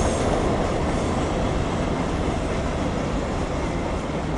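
Freight train cars rolling past: a steady rumble and rattle of steel wheels on the rails.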